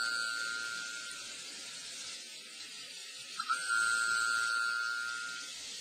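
North Pacific minke whale "boing" call from a hydrophone recording: a short onset followed by a steady high tone about two seconds long. The tail of one call fades in the first second, and a second full call starts about three and a half seconds in.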